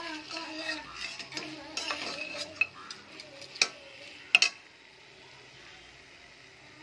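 Meat and whole spices being stirred and scraped in a cooking pot while sautéing, with clinks of the utensil against the pot and a light sizzle. The stirring stops about four and a half seconds in, leaving a faint steady hiss.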